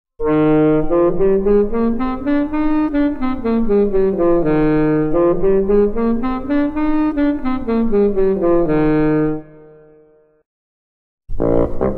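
Instrumental music: two parallel melody lines stepping up and back down twice in quick, even notes. The music stops about nine and a half seconds in and starts again after a short pause just before the end.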